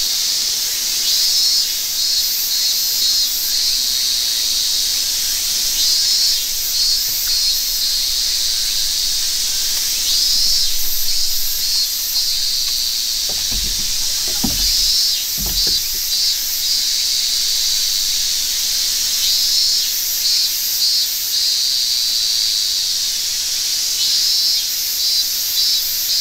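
A steady chorus of cicadas buzzing in high, pulsing waves from the surrounding summer woods. About halfway through come two or three dull, low thumps.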